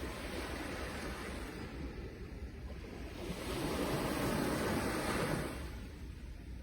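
Sea waves washing in: a steady rush of surf, with a wave building about three seconds in and easing off a couple of seconds later.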